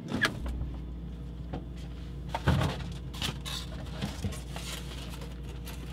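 Kitchen handling sounds: a handful of scattered knocks and clatters as dishes and containers are moved, the loudest about two and a half seconds in, over a low steady hum.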